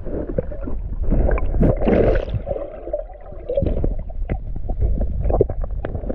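Muffled underwater sound of a hand digging through silt and gravel on a creek bottom and grabbing a crawfish: a low churning rumble of stirred water with many scattered clicks and knocks of stones. A louder rush of water comes about one to two seconds in.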